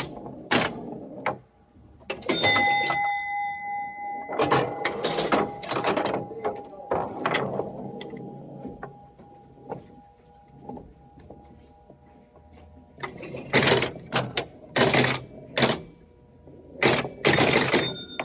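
A run of separate cartoon sound effects from a Japanese anime, one after another: short noisy swishes and bursts, with a steady held tone in the first half.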